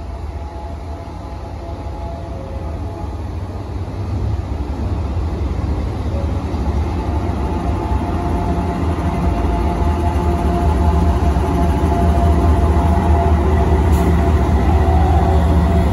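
Diesel locomotives of a GE test train, led by a GE Evolution Series unit, approaching and crossing a bridge: a low engine rumble growing steadily louder as the train nears.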